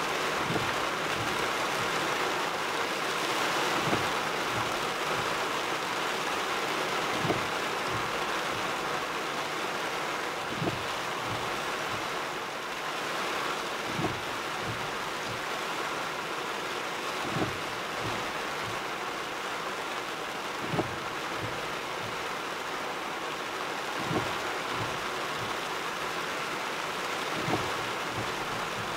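Heavy rain drumming on a truck's roof and windshield, heard from inside the cab as a steady hiss. The windshield wiper gives a short thump at each sweep, about every three and a half seconds.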